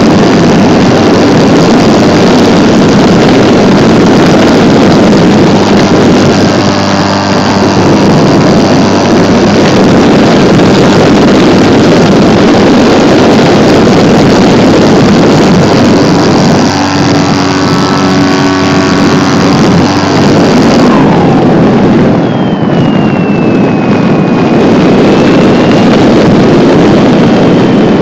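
Onboard sound of a small fixed-wing RC plane in flight: its HeadsUpRC Brushless 480 Plus electric motor and propeller running, nearly buried under loud, overloaded wind rush on the microphone. About 21 s in, the hiss thins and a faint whine falls in pitch, then holds steady.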